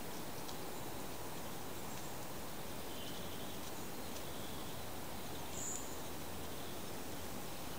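Steady outdoor background hiss with a few faint, brief bird chirps scattered through it, one higher, clearer chirp a little before the end.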